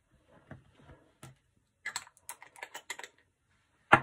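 Handling noise: a run of quick, light clicks and taps, about eight in just over a second, then a single louder knock near the end as something is set down or the phone is touched.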